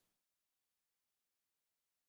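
Silence: the audio track is empty.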